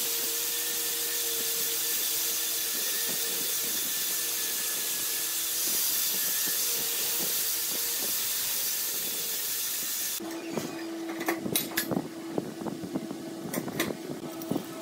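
Angle grinder with a sanding disc working a steel axe head cut from a motorcycle brake disc: a steady, even hiss with a faint whine. About ten seconds in the grinding cuts off abruptly, and sharp clicks and knocks of the metal piece being handled follow over a steady low hum.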